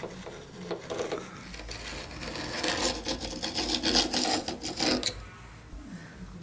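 Utility knife blade scraping and scoring through dried paint along the joint between a wooden doorstop molding and the door jamb: a rapid run of rasping strokes, loudest between about two and five seconds in, then stopping.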